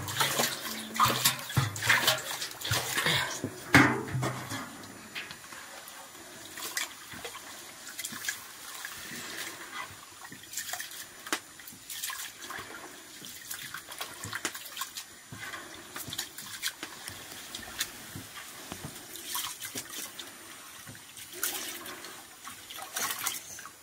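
Dry rice pouring from a metal canister into an aluminium pot for about the first four seconds. Then hands swish and rub the rice in water in the pot, with soft sloshing and scattered small clicks of grains against the metal.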